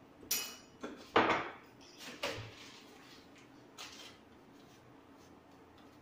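A few short knocks and clatters of kitchen containers and utensils being handled while ground pepper is added to a bowl of beaten egg and milk, the loudest just after a second in. The knocks stop after about four seconds.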